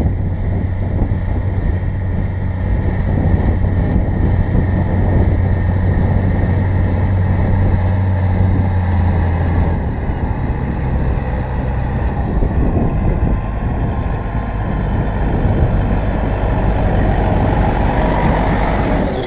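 Diesel engine of a Valtra 8550 tractor running under load as it pulls a seed drill across the field. It makes a steady low drone that shifts lower about halfway through and changes in character near the end as the tractor draws close.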